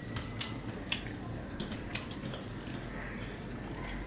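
Fingers mixing rice and curry on a stainless steel plate: soft squishing and rustling with a few sharp clicks as the fingers knock against the metal plate, over a steady low hum.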